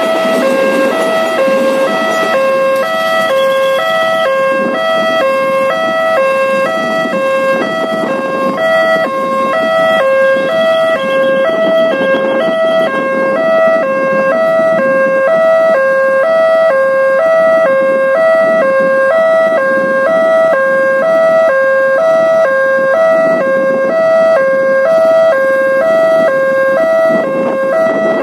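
Indonesian railway level-crossing alarm sounding from the horn loudspeaker on the crossing mast. It is the common fast electronic tone, two pitches alternating rapidly and evenly without a break, the warning that the barriers are down for a train.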